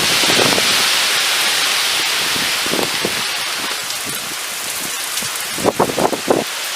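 Heavy rain falling steadily in a thunderstorm, with a few louder spatters near the end.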